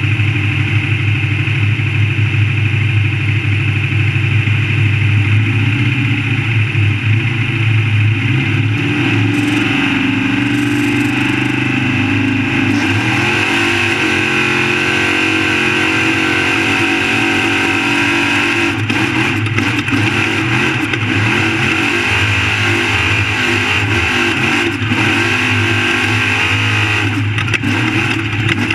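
Off-road race truck engine running hard and continuously, its pitch wavering up and down as the revs change.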